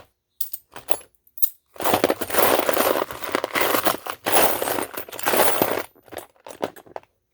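Small metal sewing machine presser feet clinking together as they are handled and sorted: a few separate clicks, then about four seconds of dense rattling as the pile is rummaged through, then more scattered clicks.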